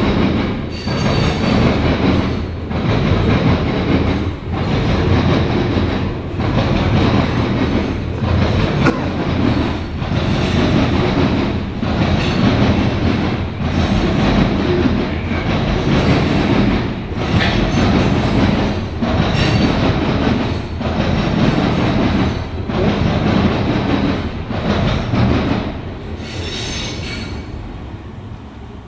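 Freight train of grain cars rolling past close by: a loud, steady rumble and clatter of steel wheels on rail that dips briefly about every two seconds as each car passes. It eases off near the end.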